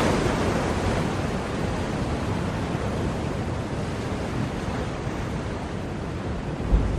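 Ocean waves washing on the shore: a steady rush of surf that eases a little through the middle and builds again near the end, with a brief low thump just before it swells.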